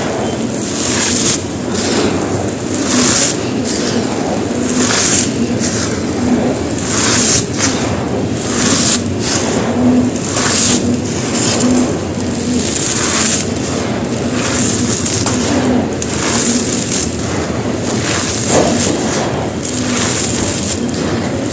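Dry, gritty white concrete being crumbled and crushed in a tub: a run of irregular crunches and scraping grit, about one or two crunches a second.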